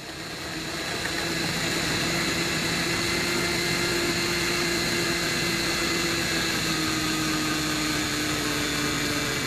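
Food processor motor starting up and running steadily, blending raw chicken and seasonings into a smooth paste; its hum sags slightly in pitch as it works.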